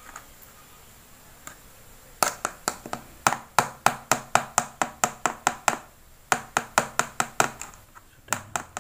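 Quick sharp taps of a soft-frog mould on a wooden skewer knocking against a plastic cup as it is dusted with baby powder, about three to four taps a second. They come in two runs with a short pause between and two last taps near the end.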